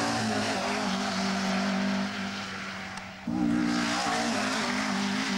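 A Mk1 Ford Escort rally car's four-cylinder engine running hard at a steady high pitch. A little after three seconds it dips briefly, then comes back abruptly with a fuller, higher note and holds there.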